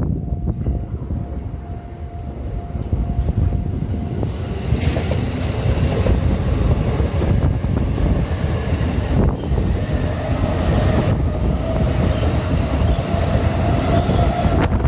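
JR Ome Line train passing over the level crossing: a steady tone stops about four seconds in, and the train's rumble and wheel noise then build and run on steadily.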